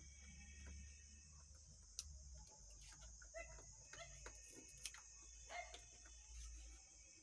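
Near silence: a faint steady high-pitched drone with scattered light clicks and taps from hands handling the wiring inside an open power amplifier chassis, the sharpest about two and five seconds in.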